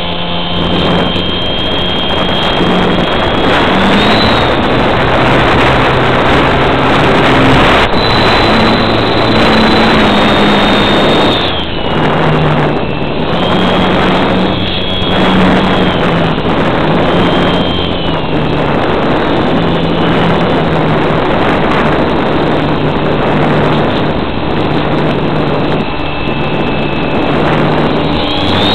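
A model airplane's motor and propeller heard from a camera mounted under the plane, with heavy wind rush over the microphone. A high whine and a low hum shift up and down in pitch with the throttle, dipping briefly about twelve seconds in.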